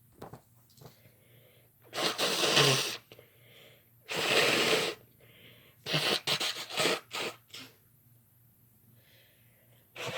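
A woman sneezing: two loud, full sneezes about two and four seconds in, followed by a quick run of shorter, choppier breaths and sneezes.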